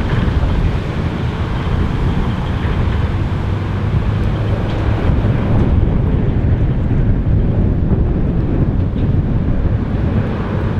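Scania V8 truck engine pulling a heavy low-loader, a loud, steady, deep engine and exhaust sound as the rig drives off up a gravel road.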